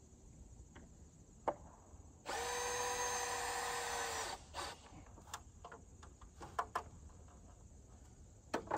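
Cordless drill running at steady speed for about two seconds, a couple of seconds in, driving a screw into the wooden swing-set beam. Light clicks and knocks follow.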